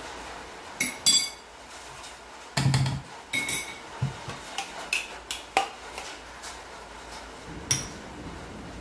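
A metal spoon clinking and scraping against a plastic food-chopper bowl of chopped carrot, with a ringing clink at about a second in and another near the end. Between them comes a heavier knock, then a string of plastic clicks and taps as the bowl is handled and lifted off its base.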